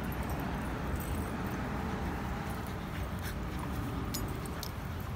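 Dogs play-wrestling, a French bulldog and a larger dog vocalising at each other, over a steady low rumble.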